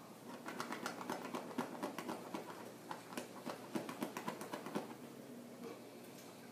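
A dog digging and scratching at its bed with its claws: a fast, uneven run of scratching strokes that starts about half a second in and stops about five seconds in.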